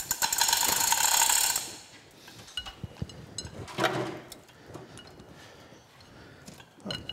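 Manual chain hoist being hauled on, its hand chain rattling fast through the hoist for about a second and a half as it takes up the weight of the lathe's drive motor. A single knock about four seconds in, then faint scattered clicks of metal being handled.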